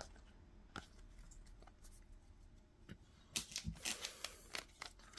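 A few soft clicks of trading cards being flicked through. From about three seconds in comes a quick run of crinkling and crackling, a foil trading-card pack wrapper being handled.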